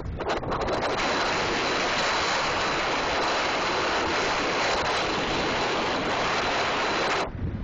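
Wind buffeting the microphone of a bicycle-mounted camera on a fast downhill descent, a loud steady rush of noise that dips briefly near the end.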